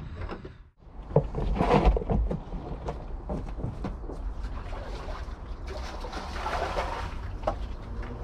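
Knocks, clatter and rattles of gear being handled aboard a small boat, loudest a second or two in, over a steady low rumble. Around six seconds in there is a stretch of sloshing, hissing liquid.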